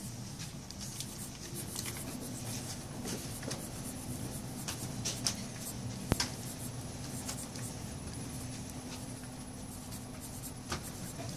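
Pencil sketching on a card: short, light scratchy strokes of graphite on card stock, with a sharp tap about six seconds in, over a low steady hum.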